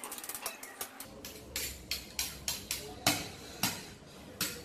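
Metal knife tapping and scraping against an electric hand mixer's wire beaters to knock off stiff meringue: a quick flurry of clicks in the first second, then sharp taps about every half second.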